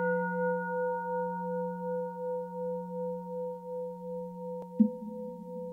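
A singing bowl struck once and left ringing, its several tones fading slowly with a gentle wavering. A short, low knock sounds near the end.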